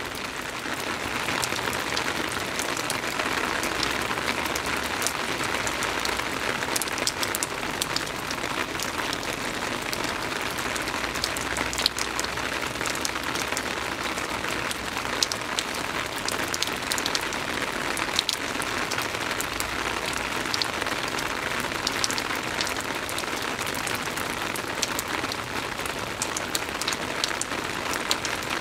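Steady soft rain falling, an even hiss with many separate drops ticking on a surface.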